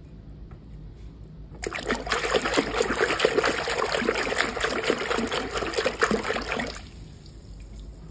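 Hand swishing and scrubbing a plastic toy in a basin of soapy, foamy water: dense splashing and sloshing that starts suddenly about a second and a half in and stops about five seconds later.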